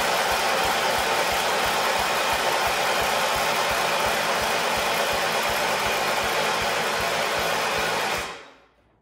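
Electric starter cranking the freshly rebuilt 16-horsepower engine of a 1978 John Deere 316 garden tractor. It gives a steady whine with a rapid, even chug of compression strokes. The engine turns over without starting, and the cranking stops suddenly about eight seconds in.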